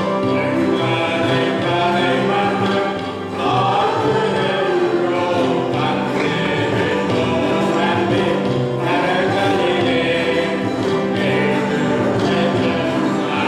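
Mixed choir of men and women singing a carol together, with a short break between phrases about three seconds in.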